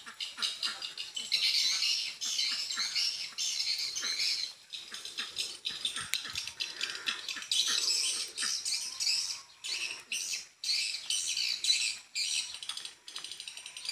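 Swiftlet calls: dense, rapid, high-pitched chirping and twittering that goes on almost without a break, dipping only briefly a couple of times.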